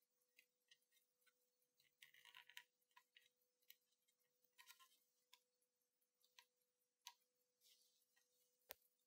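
Near silence with faint, scattered small clicks and short rustles from fingers handling the open plastic Walkman case and the parts inside it, with one sharper click near the end. A faint steady hum runs underneath.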